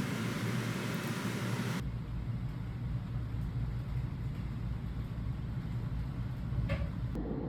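About two seconds of even hiss that cuts off abruptly, then a steady low rumble like a car running, with a faint click or two.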